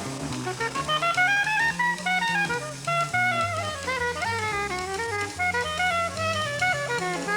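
Jazz music: a quick melodic line of short notes climbs and falls over a walking bass and a drum kit.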